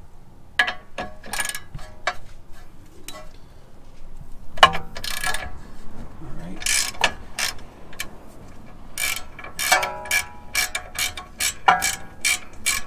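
Ratchet wrench clicking in irregular bursts as it backs the castle nut off the outer tie rod end's stud, with a few short ringing metal clinks.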